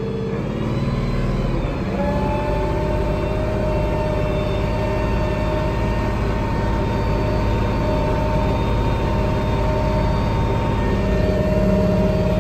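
International Harvester 1486 tractor's six-cylinder diesel engine working hard under load in a high gear, rising in pitch about two seconds in and then holding steady with a whine on top, as the tractor tries to spin its tires free of deep mud.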